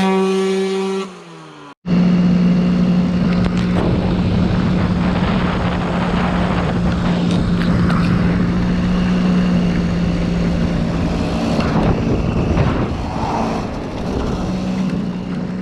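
Enduro dirt bike engine running at a steady high pitch under load, with a brief drop to silence about two seconds in.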